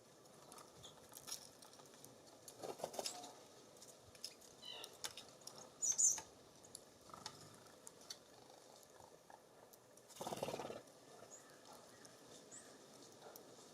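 Small songbirds at a feeder: scattered light taps and scuffs, a short run of high chirps just before 5 s and a sharp chirp about 6 s in. A brief rushing noise follows near the 10-second mark.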